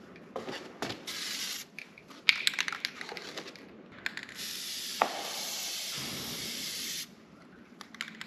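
Aerosol spray-paint can spraying: a few short hissing bursts, then one long spray of about two and a half seconds. Between them comes a quick run of sharp rattling clicks.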